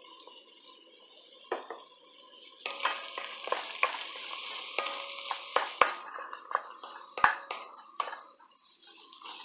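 Diced vegetables sizzling in a hot enamelled pot as flour is stirred in with a wooden spoon, the first stage of a roux. The sizzle comes up a few seconds in, with the spoon clacking and scraping against the pot throughout.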